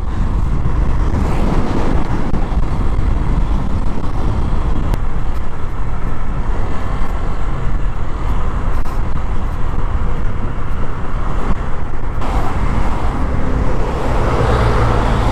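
Motorcycle riding along a highway: a steady rush of engine and road noise heard from the bike.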